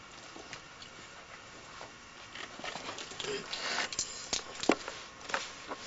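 Handling noises in a small booth: rustling of paper and clothing, with several sharp clicks and knocks near the end, the loudest a little under five seconds in, as a person crouches to the floor with paper and pen.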